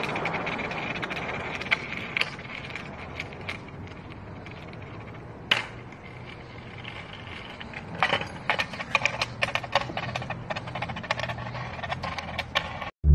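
Skateboard wheels rolling on concrete: a steady rolling noise with scattered clicks and rattles, one sharp click about five seconds in and a quick run of clicks near the end.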